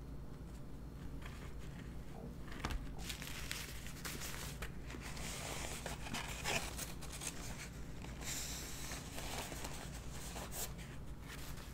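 Paper napkin being unfolded and crumpled in the hands: a dry crackling rustle with a few sharp crackles, starting a couple of seconds in and dying away near the end.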